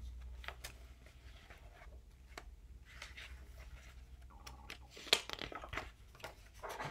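Pages of a hardcover picture book being opened and turned by hand: faint paper rustles and crinkles with small clicks, a sharper rustle about five seconds in and more just before the end.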